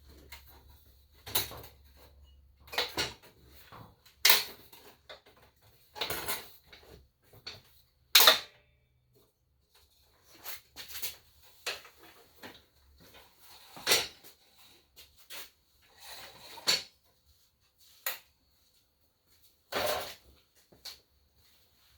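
Irregular knocks and clunks of a Ridgid AC9960 miter saw stand being handled and positioned with a heavy miter saw on it. The loudest knock comes about 8 seconds in.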